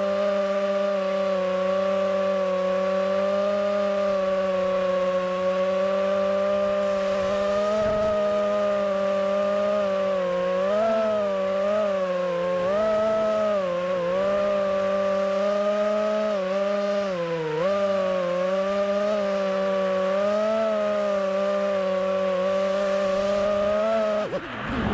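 FPV racing drone's brushless motors and propellers whining steadily, the pitch wavering up and down with throttle changes from about ten seconds in. Near the end the whine drops sharply as the throttle is cut.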